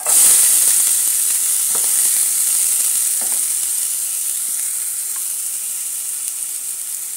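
Finely chopped onion dropped into hot oil in a stainless steel frying pan: sizzling that starts suddenly and loudly, then eases off slowly, with a few light knocks.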